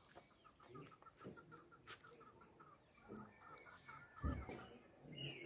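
Faint bird calls, a rapid run of short repeated notes, likely a chicken, for about three seconds. A dull low thump about four seconds in.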